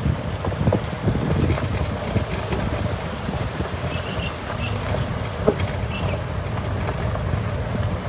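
Wind buffeting the microphone over the steady rumble of a vehicle rolling along a gravel road, with small crackles from the tyres on the gravel.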